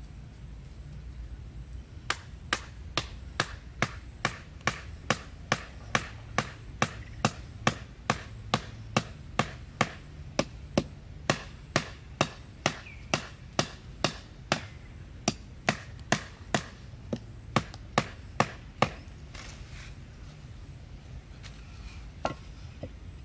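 A wooden stick pounding wooden stakes into the ground: a steady run of sharp knocks, about two a second, that stops a few seconds before the end. A few fainter knocks follow near the end.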